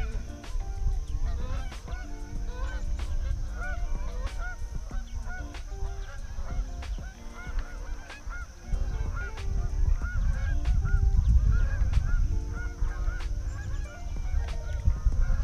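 Animals calling over and over: low, drawn-out calls overlapping with many short, higher chirps. Wind rumbles on the microphone, heavier in the second half.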